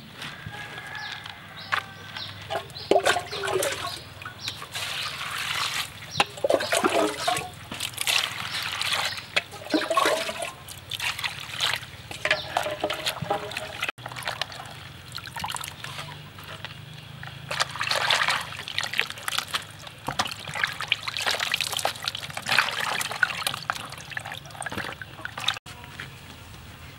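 Hands washing vegetables in water in a plastic basin: irregular sloshing, splashing and dribbling of water.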